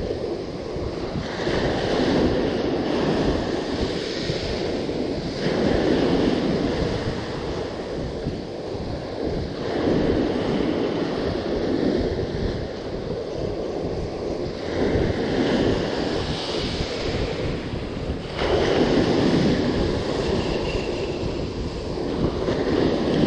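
Small waves breaking and washing up the beach, the surf swelling about every four seconds, with wind buffeting the microphone.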